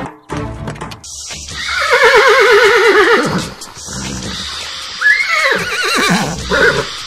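Horse whinnying twice: a long quavering neigh that falls in pitch about two seconds in, then a shorter one that rises and falls about five seconds in.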